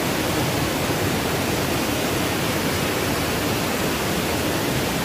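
Spring water gushing out from behind rocks and tumbling down small cascades: a steady, unbroken rush of falling water.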